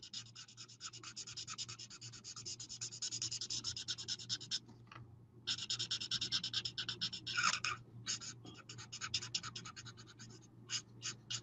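Stampin' Blends alcohol marker (light Soft Suede) scratching on cardstock in rapid short colouring strokes, several a second, with a brief pause about halfway through.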